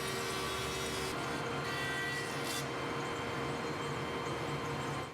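Thickness planer running steadily with a faint whine, dropping away sharply right at the end.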